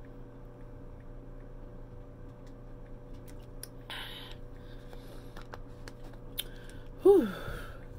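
A loud burp about seven seconds in, falling sharply in pitch, after a breathy exhale from drinking water about four seconds in. Scattered light clicks and rustles from hands handling things at the table.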